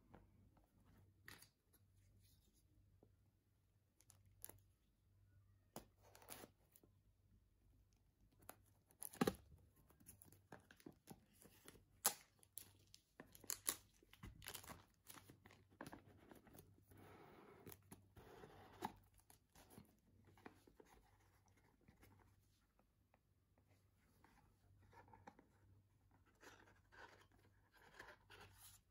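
Plastic shrink wrap being cut and torn off a small cardboard product box, with crinkling and sharp clicks and taps as the box is handled and opened. The clicks are loudest about a third of the way in, and the crinkling and tearing come in a stretch through the middle and again near the end.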